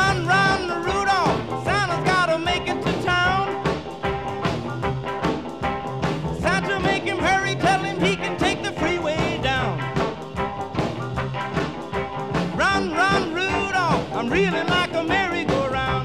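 Swing-style background music with a bending lead melody over a steady accompaniment.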